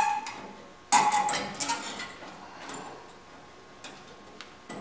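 Thin sheet-metal patch panel clanking once against the truck body with a short metallic ring about a second in, then a few light ticks and taps as it is fitted by hand.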